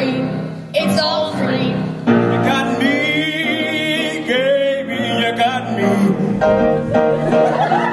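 Young singers performing a Broadway show tune live with piano accompaniment, sung notes held with vibrato.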